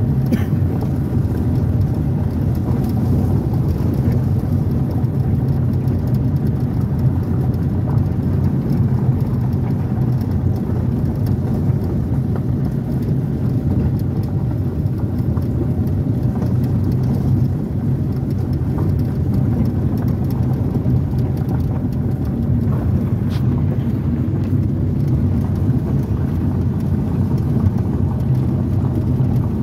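Car driving steadily along a gravel road, heard from inside the cabin: a constant low rumble of engine and tyres, with a fine crunching hiss from the gravel.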